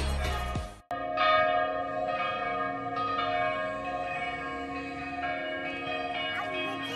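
Background music cuts off abruptly within the first second. Then church bells ring on steadily, several bell tones sounding together and struck afresh every so often.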